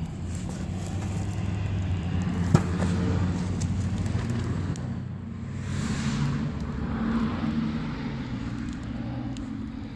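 A low, steady motor-vehicle engine hum that drifts slightly in pitch, with one sharp click about two and a half seconds in.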